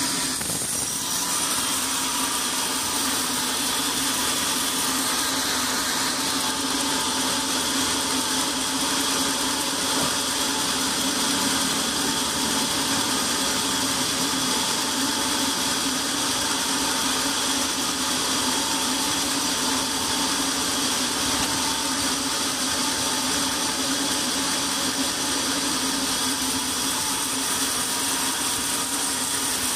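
Sawmill band saw running steadily, a continuous machine drone with a high whine, as its blade saws a squared log into a board.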